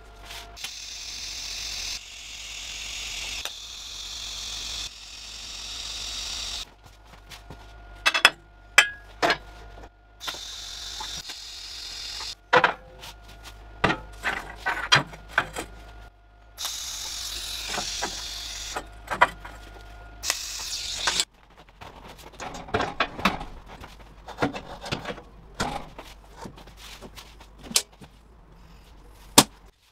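Short spells of steady hiss from a TIG welding arc on stainless steel, each a second or two long, alternating with sharp metallic clanks and knocks as stainless tubes and frame parts are handled on a steel welding table.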